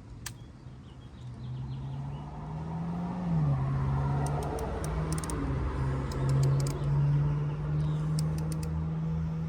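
A motor running: a steady hum that grows louder over the first few seconds and steps down in pitch about three seconds in, with light metallic clicks of hand tools.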